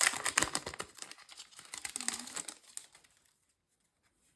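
Foil wrapper of a Yu-Gi-Oh! booster pack crinkling as it is handled and opened: a dense crackle for about two and a half seconds that then dies away.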